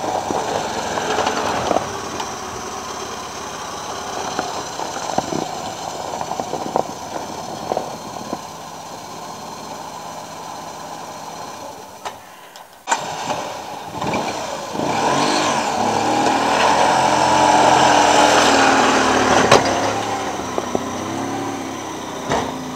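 Lada Oka small car's two-cylinder engine running and revving as the car moves off through snow. About halfway through the sound dips briefly, then comes back louder with the revs held higher.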